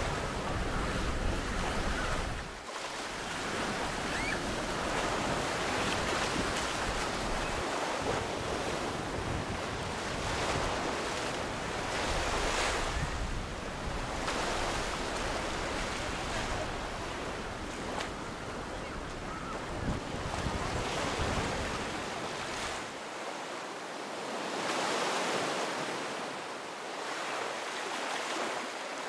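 Surf breaking and washing up a sandy beach, a steady rushing that swells and fades with each wave, with wind buffeting the microphone. The low wind rumble drops away about three quarters of the way through.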